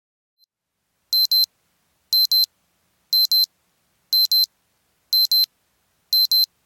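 Electronic timer alarm beeping: a high-pitched double beep repeated once a second, starting about a second in, signalling that the two-minute countdown has reached zero.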